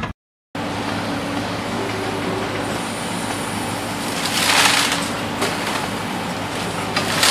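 A motor or engine running steadily, with a brief hissing rush a little past halfway.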